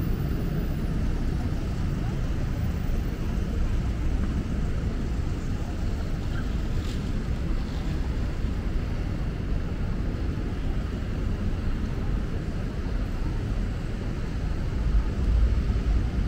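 Steady city street traffic noise, a continuous low rumble of passing vehicles, swelling louder near the end.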